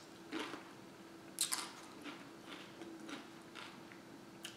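Tortilla chip crunching while being chewed: a few short crisp crunches, the loudest about a second and a half in, with fainter small mouth and chewing ticks between them.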